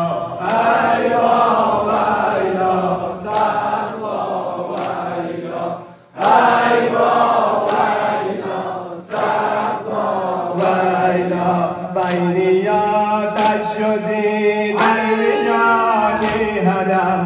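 Male reciter chanting a Muharram noha (mourning lament) through a microphone and loudspeaker, in long sung lines with a short break about six seconds in. Sharp hand slaps of chest-beating (sineh zani) land among the lines, about once a second in the second half.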